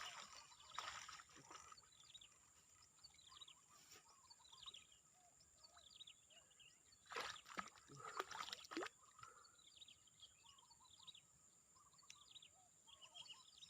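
Quiet outdoor ambience with many short, falling bird chirps throughout, and a louder burst of noise in several strokes about seven to nine seconds in.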